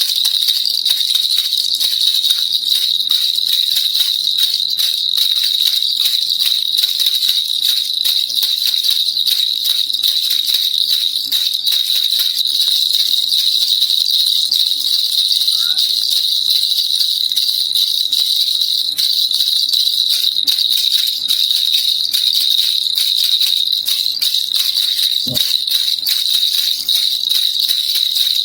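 Baby rattle (kilukiluppai) shaken without pause: a dense, rapid, even rattling with a bright, high jingle. A single brief low thump about 25 seconds in.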